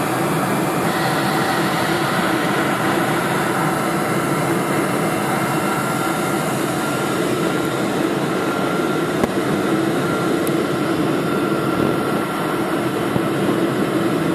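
Steady roar of GE turbofan engines and rushing air as heard inside a jet airliner's passenger cabin on its descent to land, with a faint steady whine over it.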